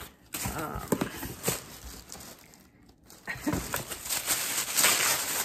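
Wrapping paper crinkling and rustling as an item is unpacked from a cardboard box. A few light knocks and clicks come in the first second and a half, and the crinkling starts about three seconds in and grows louder toward the end.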